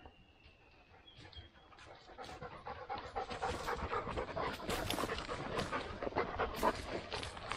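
A dog panting hard and fast close by, getting louder from about two seconds in.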